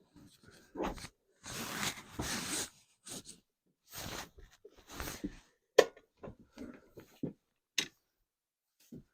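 Hands working on a lawnmower during an oil change: short scraping and rustling noises, with sharp clicks and knocks about six and eight seconds in.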